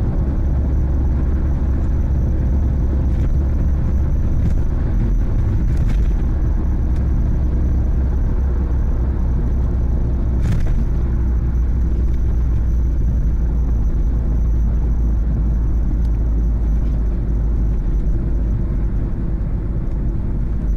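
Mitsubishi Lancer Evolution wagon on the move, with a steady low rumble and a faint drone: the noise of the left rear wheel hub bearing, which has play in it.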